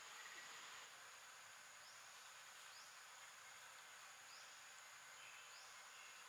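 Near silence: faint outdoor ambience of insects, a steady high-pitched hum with faint short rising chirps about once a second from about two seconds in.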